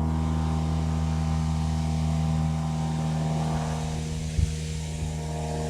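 Cessna light plane's propeller engine droning low overhead, a steady many-toned hum that eases off a little in the second half. A short thump sounds about three-quarters through.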